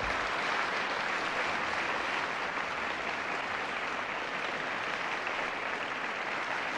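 Theatre audience applauding: many hands clapping in a steady, even mass.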